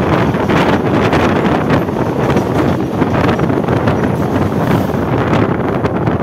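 Loud, steady rush of wind on the microphone at the open door of a moving Mumbai suburban EMU train, mixed with the running noise of the train on the track, while a second EMU passes close alongside on the adjacent line.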